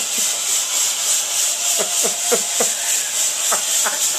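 Smoke machine hissing as it pumps out fog: a loud, steady hiss with a rapid, even pulse. A few short falling tones sound faintly about halfway through and near the end.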